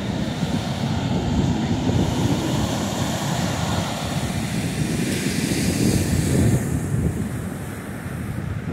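Wind buffeting the microphone with a heavy, gusting rumble, over the hiss of ocean surf washing up the beach. The surf hiss drops away about seven seconds in.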